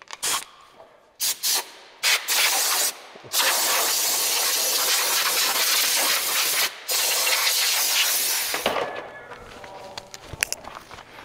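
Compressed-air blow gun hissing: a few short blasts, then one long steady blast of about five seconds with a brief break in it. Quieter scattered clicks follow near the end.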